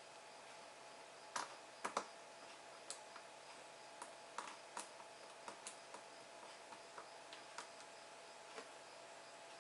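Small, irregular clicks and taps of a screwdriver and screws on a laptop's display frame as the screws are put in and tightened, the loudest about one and a half and two seconds in.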